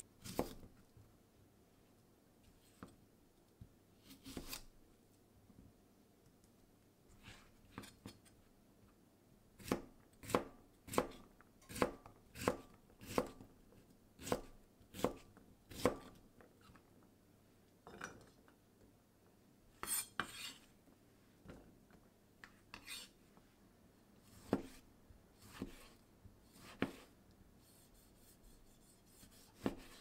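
Chef's knife dicing cucumber on a cutting board: sharp knocks of the blade hitting the board, an even run of about one and a half a second in the middle, with scattered, irregular cuts before and after.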